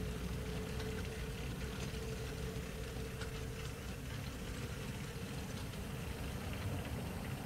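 Model railway freight train of Lowmac wagons rolling past over the yard's track and points: a low rumble with scattered light wheel clicks, and a steady hum that fades out about three and a half seconds in.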